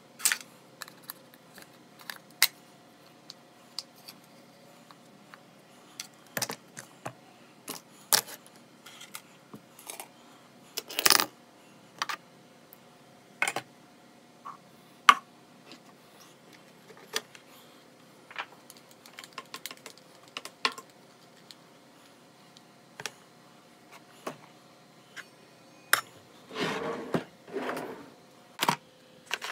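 Small objects being handled and set down on a wooden desk: irregular clicks and knocks, with a longer stretch of handling noise near the end.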